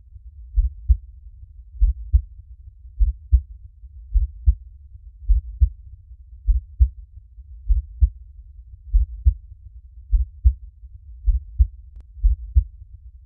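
A slow, steady heartbeat: low paired thumps (lub-dub), about fifty beats a minute.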